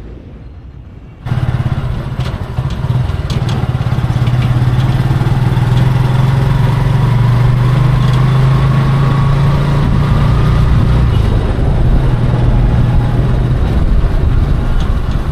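Motorcycle engine of a Philippine tricycle (motorcycle with sidecar) running steadily during a ride. It comes in suddenly about a second in, after a short quieter stretch.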